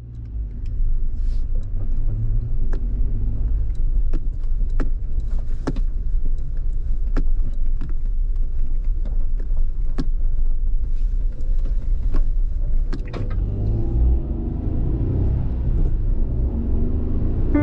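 Suzuki Jimny JB64 driving, heard as a steady low rumble of engine and tyres with frequent sharp clicks and knocks. Piano music fades in about thirteen seconds in.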